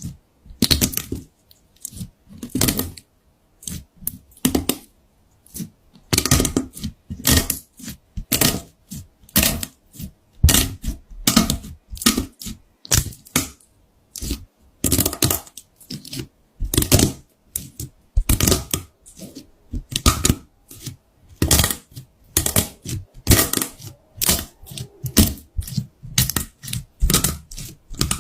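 Slime being squeezed and pressed by hand, giving bursts of sticky clicks and crackling pops about once or twice a second.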